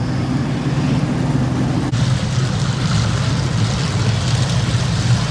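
Circle-track race car engines running at low speed, a steady low rumble, with the sound changing abruptly about two seconds in.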